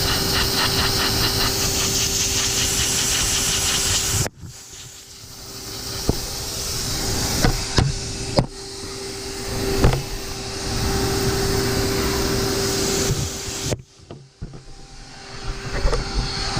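Shop vacuum running as a blower, a steady motor whine under a hiss of rushing air, blowing into a truck's exhaust to find leaks. The sound drops away abruptly about four seconds in and again near the end, with a few sharp clicks in between.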